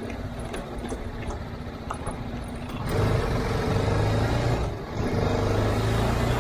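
TVS Apache RR 310's single-cylinder engine running at steady revs while riding, getting louder about three seconds in, with a brief dip near five seconds.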